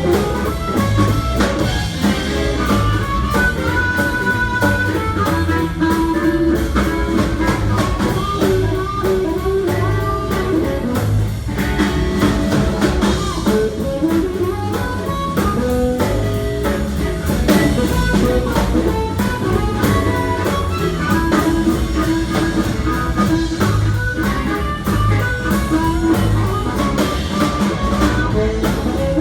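Live blues band playing an instrumental passage, with guitar and a drum kit keeping a steady beat.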